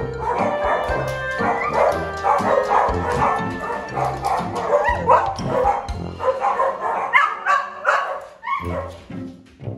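A dog barking and yipping repeatedly over background music.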